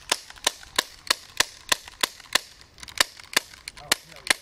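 CO2 airsoft pistol fired in rapid succession: about a dozen sharp pops, roughly three a second, with a brief pause a little past the middle.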